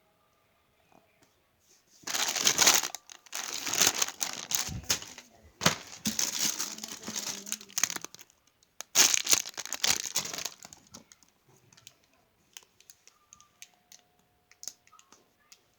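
Plastic packaging crinkling as it is handled, in four bursts of a second or two each, then a few light clicks and taps.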